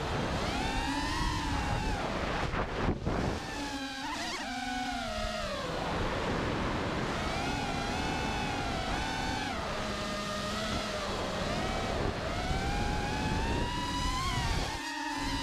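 FPV freestyle quadcopter's brushless motors and propellers whining, the pitch rising and falling repeatedly as the throttle changes, over wind noise on the microphone. The low part of the sound drops out briefly near the end.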